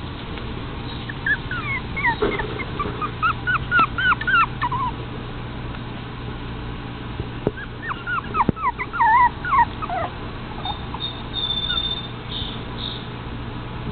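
Toy fox terrier puppies whimpering and yipping in short, high, falling squeals. The squeals come in two bouts: one starts about a second in, and the other about halfway through.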